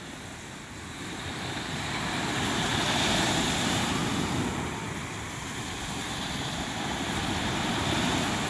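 Small surf breaking and washing up the sand at the shoreline, swelling louder about two to three seconds in and again near the end, with wind rumbling on the microphone.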